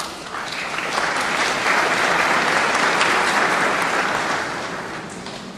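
Audience applauding a graduate whose name has just been read; the clapping swells about a second in, holds, then fades away.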